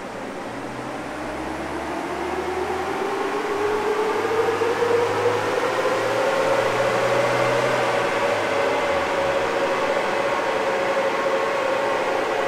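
Mahindra Thar's 2.5-litre four-cylinder turbodiesel pulling hard on a chassis dyno. Its note rises steadily in pitch and loudness as the revs climb, then holds high near the end.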